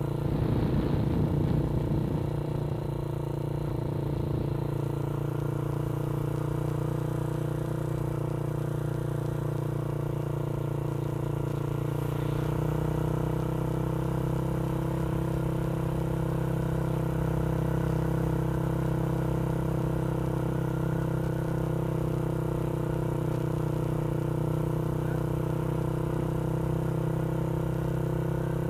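Motorcycle engine running at a steady speed while being ridden, an even drone with a louder, rougher rush in the first couple of seconds.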